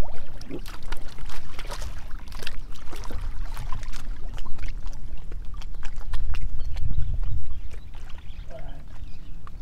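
Water splashing and dripping in a run of short, sharp splashes, strongest in the first half, over a steady low rumble of wind on the microphone.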